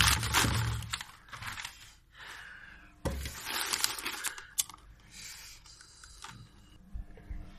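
Sheets of printed paper being crumpled and torn by hand, in two loud bursts of rustling with quieter crinkling between them, and a few short clicks near the end.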